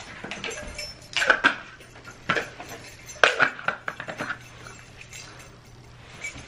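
Clinks and clatter of a stainless-steel travel mug and other items being handled while packing a bag: a cluster of knocks about a second in, one near two seconds, and another cluster from about three to four seconds.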